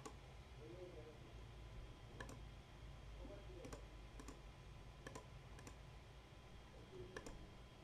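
Faint computer mouse clicks: about seven single clicks spaced roughly half a second to a second and a half apart, as word tiles are picked one after another.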